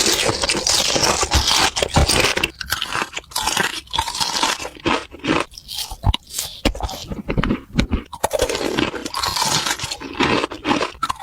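A person chewing crunchy food with mouth sounds close to the microphone: a dense run of crackling crunches, broken by a few brief pauses.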